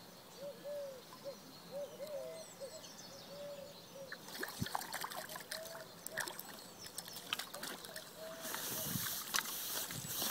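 A hooked carp splashing and thrashing at the water's surface as it is drawn into a landing net, starting about four seconds in, then a rush of water draining from the net as it is lifted out near the end. Short repeated bird calls sound throughout.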